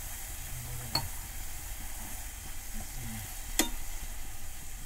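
Grated beetroot cooking in milk and ghee in a pan, sizzling and hissing steadily as it is stirred with a slotted spatula. The spatula knocks against the pan twice, about a second in and again later, the second knock louder.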